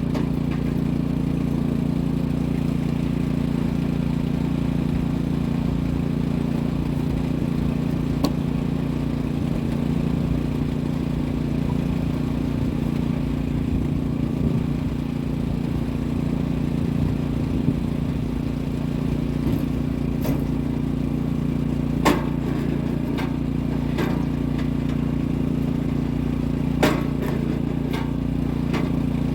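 An engine running steadily at an even speed, with a few sharp clacks or knocks, most of them in the second half.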